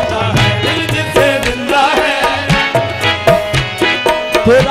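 Qawwali music: harmoniums holding chords under a wavering solo voice, with tabla strokes in a quick beat.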